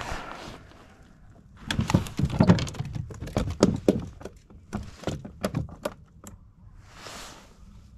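A run of quick knocks, clatters and rattles lasting about five seconds as the catch and gear are handled aboard a kayak, followed by a short soft rush about seven seconds in.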